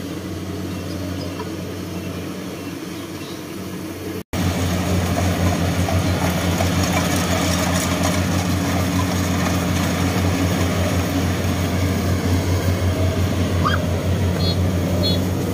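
Kubota rice combine harvester's engine running steadily while harvesting. It is a moderate hum at first; after a brief dropout about four seconds in it comes back much louder and close by, with a slight pulsing throb.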